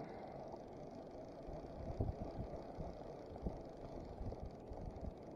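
Faint outdoor noise of wind on the microphone and water lapping against a kayak hull, with irregular low thumps from about a second and a half in.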